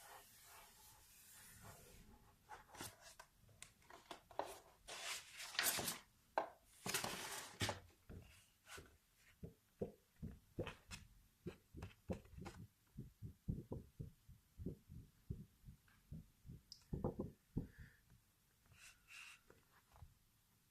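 ASMR trigger sounds: a few seconds of rubbing and crinkling, then a steady run of soft taps about two a second, thinning out near the end.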